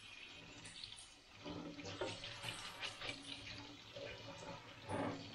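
Kitchen tap running a faint, steady stream of cold water over cooked spaghetti in a sieve, rinsing the noodles.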